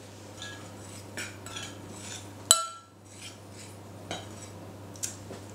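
A spoon stirring a dry flour mix in a glass bowl: soft scraping with light clinks against the glass, and one sharper clink about two and a half seconds in.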